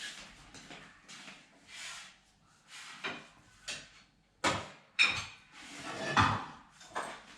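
Irregular knocks, clatters and rustling, as of things being handled and set down in a kitchen, loudest from about four and a half seconds in.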